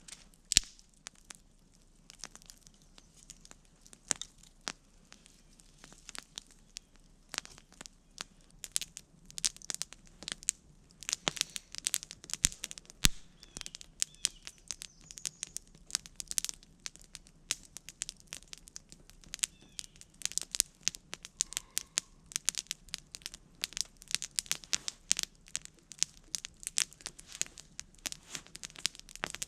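Wood campfire crackling with sharp, irregular pops, sparse at first and much more frequent after several seconds.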